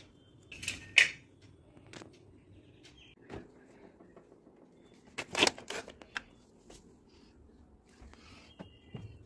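Kitchen handling noises: a sharp clink about a second in, then a cluster of knocks and rattles past the middle and a few light clicks near the end, as a refrigerator is opened and things inside it are handled.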